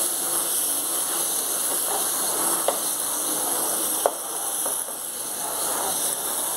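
Small onions and tomatoes sizzling steadily in oil in a non-stick pot, cooked down until soft, while a spatula stirs them. A few light taps of the spatula against the pot are heard.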